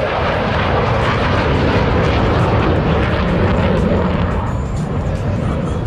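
Jet roar from Thunderbirds F-16 fighters in a low pass: a loud, steady rush that eases off slightly near the end.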